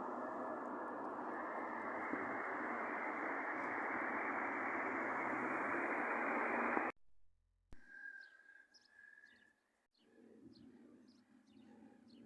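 A steady rushing noise that cuts off suddenly about seven seconds in. After a brief silence comes quiet outdoor ambience with small birds chirping.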